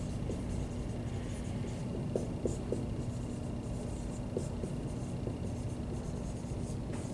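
Dry-erase marker writing on a whiteboard: faint, short scratchy strokes and light ticks over a steady low room hum.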